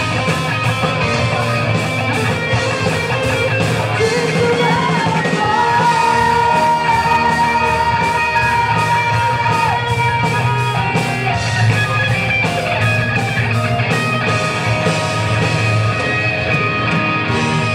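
Live rock band playing: electric guitars and bass over a steady drum beat with cymbals, and a long held high note from about five to ten seconds in.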